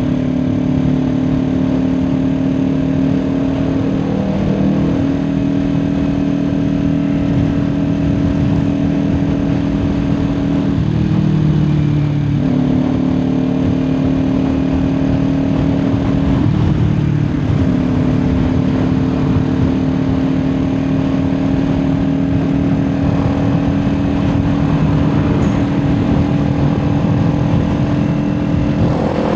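Kawasaki Ninja 400's parallel-twin engine running at steady highway cruising revs, with wind and road noise. The engine note dips and comes back a few times, around 4, 11 and 17 seconds in.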